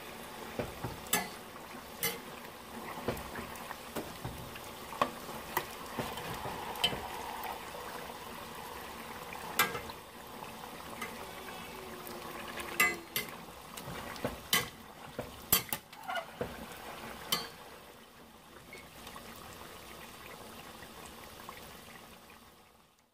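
Pork chunks frying in lard in an enamelled cast-iron Dutch oven: a steady sizzle, with a slotted metal spatula scraping and clicking against the pot about a dozen times as the meat is turned to brown its other side. The clicks stop about 18 seconds in, leaving the quieter sizzle, which cuts off just before the end.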